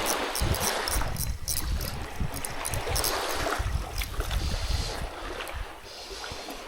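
Wind buffeting the microphone with a gusty rumble, over the wash of waves at the shoreline.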